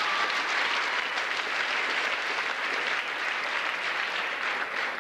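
Crowd applauding, a steady clapping that eases off near the end.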